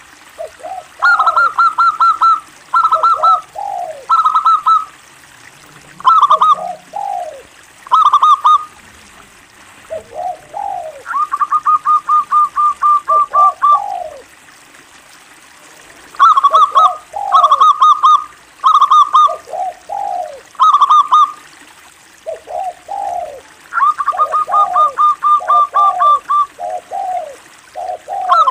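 Zebra dove (local perkutut) singing: repeated phrases of quick cooing notes, with a few longer even runs of notes and short pauses between phrases.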